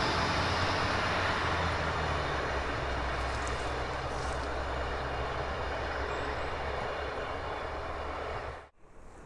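Alstom Coradia LINT 54 diesel railcar running away down the line: a low diesel engine drone with wheel-on-rail noise, slowly fading. The sound cuts off suddenly near the end.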